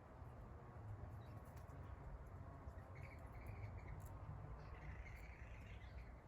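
Faint woodland ambience: a steady low rumble under soft chirping that comes in about halfway through and again near the end, with scattered tiny ticks.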